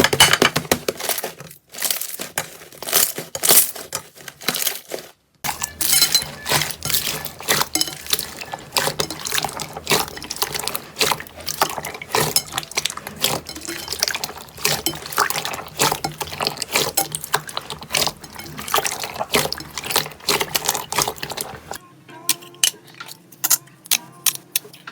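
Hands squishing, pressing and stretching slime: a dense run of wet, sticky clicks and pops, in several short segments broken by abrupt cuts.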